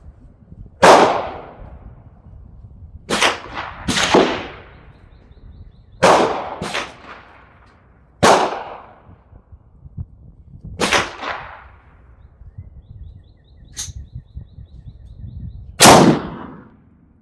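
Gunshots at a shooting range: about eight sharp shots at irregular intervals of one to three seconds, each with a short ringing tail, plus one fainter crack near the end. The loudest come about a second in and just before the end.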